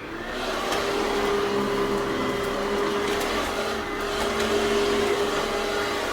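Dirt Devil Handivac hand vacuum running, its small motor giving a steady whine over a constant rush of air.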